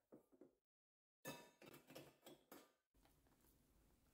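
Near silence with a few faint clicks and taps of items being handled and set down on a play kitchen shelf, in two small clusters.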